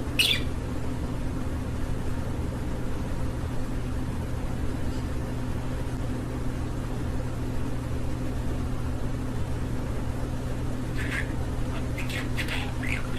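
A steady low electrical hum runs throughout, with short, high chirps and chatter from a budgerigar right at the start and again from about eleven seconds in.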